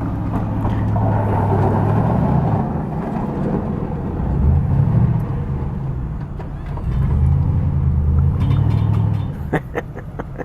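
Motor vehicles driving by on a snowy road, their engines swelling and fading as each passes. A few sharp clicks come near the end.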